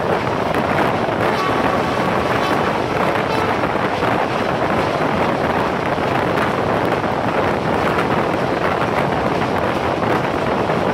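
Steady rush of wind and running noise from a passenger train moving at speed, heard from an open window of a coach, with wind buffeting the microphone.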